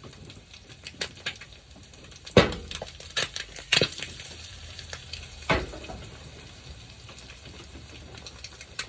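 Eggs sizzling in a frying pan on a stovetop, with a handful of sharp knocks and clinks of a utensil against the pan, the loudest a little over two seconds in.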